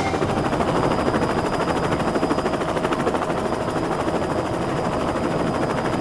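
Helicopter rotor sound: a rapid, steady chopping with a faint steady whine.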